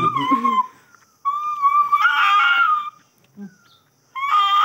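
A dog whining: long, high, drawn-out whines with a nearly steady pitch. One fades out just after the start, a full whine of nearly two seconds comes about a second in, and another begins near the end.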